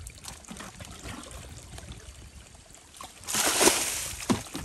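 Spring water trickling from an iron pipe into a muddy pit; about three seconds in, a splash lasting about a second as muddy water is bailed with a bucket.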